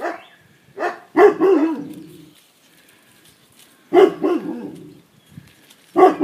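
Young puppies, almost six weeks old, barking and yapping at play in short bouts: about a second in, around four seconds in, and again near the end.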